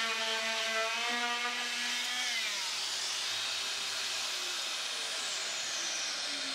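Oscillating multi-tool undercutting the bottom of a wooden door casing, with a steady high whine. About two seconds in it is switched off and the whine falls in pitch as the tool winds down, leaving a steady hiss.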